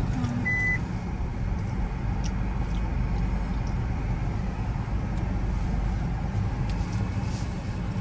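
Steady low rumble of a road vehicle, as from a moving car, with one short high beep about half a second in.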